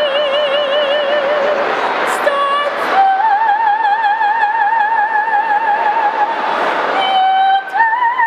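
Female gondolier singing in an operatic style with a strong vibrato. She holds long notes, one for about three seconds in the middle, then steps up to a higher note near the end.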